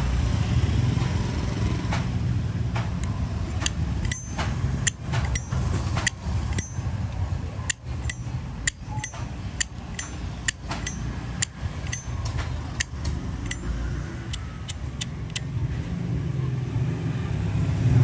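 Zippo Armor brass lighter's lid being flicked open and snapped shut over and over, sharp metallic clacks about two a second with a brief ring after several of them, starting about four seconds in and stopping near the end. A steady low rumble runs underneath.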